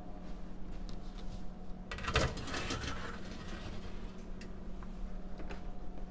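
Stainless steel gastronorm pan scraping and clattering as it slides into the rack rails of a combi steam oven, about two seconds in and lasting about a second, over a steady machine hum.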